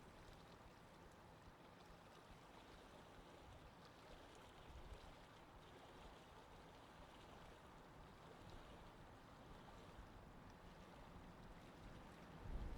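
Near silence: a faint, even low rumble and hiss of ambient noise, with a louder low rumble coming in at the very end.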